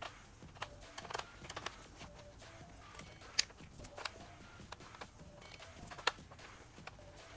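Hand driver working the bolts out of a motorcycle's rear fender mount: scattered sharp metallic clicks and taps, the loudest about three and a half seconds in and another near six seconds. Faint background music underneath.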